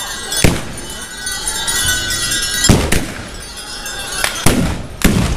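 Gunpowder guns fired with blank charges by ceremonial dancers: about six sharp shots, irregularly spaced, some in quick pairs, each with a short echo.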